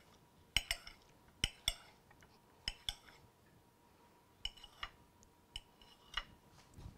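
Kitchen knife slicing bananas over a bowl: a string of short, sharp metallic clinks, many in pairs, spaced irregularly.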